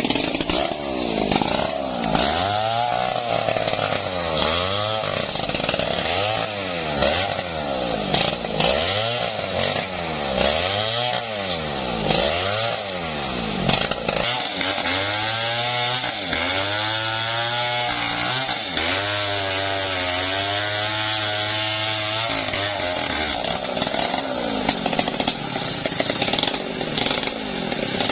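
Stihl MS 070, a large two-stroke chainsaw, cutting teak, its engine speed rising and falling about once a second, then held steadier for several seconds in the middle before turning uneven again.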